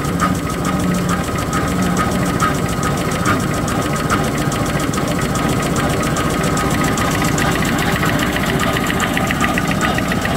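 XY-GU-20A box-drawing facial tissue folding machine running with a rapid, regular mechanical clatter. The beat quickens as its frequency inverter is turned up to raise the machine speed.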